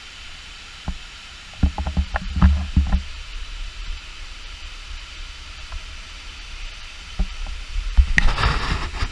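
Waterfall rushing as a steady hiss of falling water, with low rumbling bumps about two seconds in and a louder rush of noise near the end.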